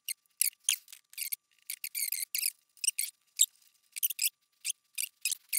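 Short, irregular rubbing squeaks, about fifteen in a few seconds, as the 3D printer's X-axis timing belt is handled and fed into place.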